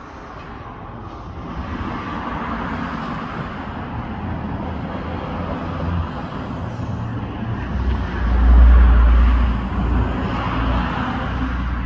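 Motor vehicle running, building up over the first couple of seconds, with a heavy low rumble that swells about eight seconds in and eases a second or so later.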